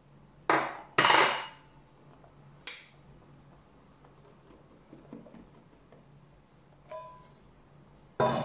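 Stainless steel mixing bowls knocking together as flour is tipped from one into the other. There are two sharp knocks about half a second and a second in, lighter knocks later, one of which rings briefly, and another sharp knock near the end.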